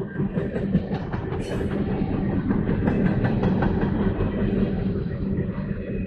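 CSX train passing at track speed, with a steady rumble and rapid clicking of wheels over the rail.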